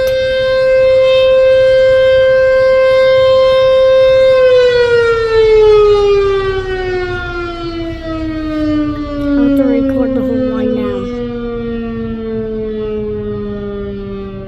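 Sentry 14VB outdoor warning siren holding a steady tone, then winding down about four seconds in, its pitch falling smoothly and its sound growing quieter as the rotor slows.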